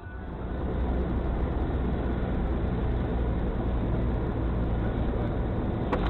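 Steady engine and road noise of a moving car, rising over the first second and then holding level.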